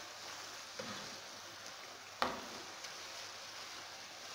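Spinach sizzling softly in its own juices in a granite-coated pan while a wooden spoon stirs it. The spoon knocks sharply against the pan once about two seconds in, with a couple of lighter taps around it.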